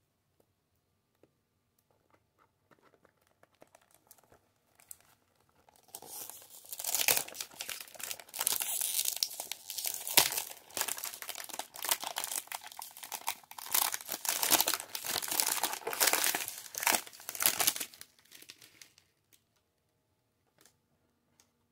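Clear plastic wrap being torn and peeled off a perfume box, crinkling continuously for about twelve seconds from around six seconds in.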